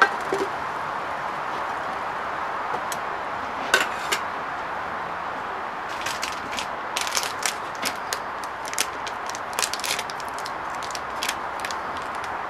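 A couple of light knocks about four seconds in as the aluminium cook pot is set down, then a run of short crackles from about six to ten seconds as a paper porridge sachet is opened and handled, over a steady hiss.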